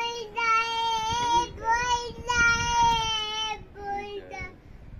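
A child's high voice singing long held notes, in several phrases of about a second each, with a shorter, quieter phrase near the end.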